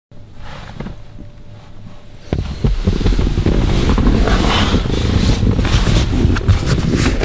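Wind buffeting the microphone outdoors: a gusty low rumble with crackle, which jumps much louder about two seconds in.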